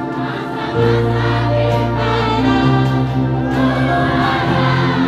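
Live band music with a crowd singing along in chorus, many voices holding long notes together. The bass comes in about a second in, and the chord changes a little past halfway.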